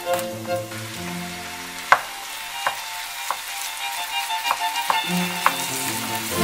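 Minced meat sizzling as it fries in a pot, stirred with a spoon that knocks sharply against the pot several times. Light background music plays at the start and comes back near the end.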